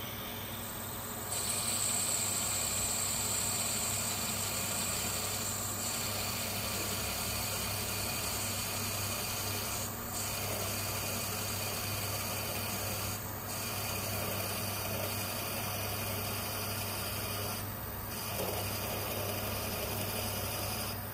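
Metal lathe running while a large twist drill in the tailstock cuts into a spinning bronze brake-cylinder casting: a steady motor hum under the scraping hiss of the cutting. The cutting gets louder about a second in, with a high whine for the first few seconds, and drops briefly three times.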